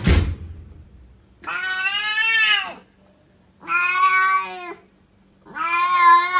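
Domestic cat giving three long, drawn-out meows about a second apart, the kind of call captioned as the cat saying "I love you". A sudden thump right at the start.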